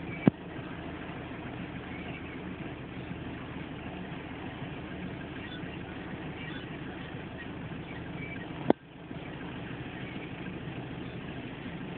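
Steady low background rumble, with a sharp click just after the start and another about nine seconds in, followed by a brief dropout.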